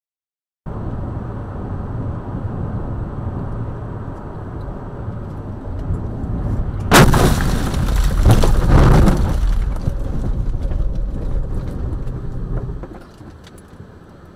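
Car cabin road noise while driving, then about seven seconds in a sudden loud bang as the car leaves the road. A couple of seconds of rough rumbling and scraping follow as it ploughs through the roadside snow and dirt, and the noise dies down near the end.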